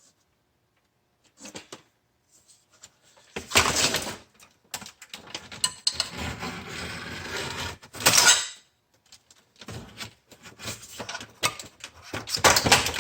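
Plastic and metal parts of a food vacuum sealer being handled and pried apart: scattered clicks, then a loud clatter about three and a half seconds in, a few seconds of scraping, a sharp rattle around eight seconds, and more clicks and knocks near the end.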